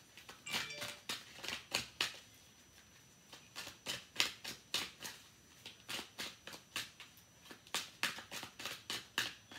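Tarot cards being shuffled by hand: a run of quick, sharp card clicks and taps, a few a second, with a short lull near the middle.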